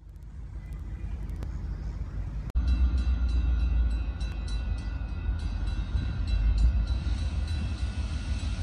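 A lone diesel locomotive rumbling as it approaches. From about two and a half seconds in, a grade-crossing bell rings in quick, regular strokes over the rumble.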